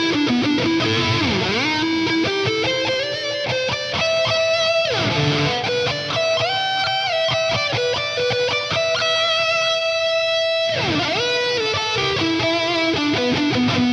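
Electric guitar fitted with FLEOR Alnico 5 humbucker pickups, playing a lead line of held notes and string bends. Three times the pitch swoops sharply down and comes back up.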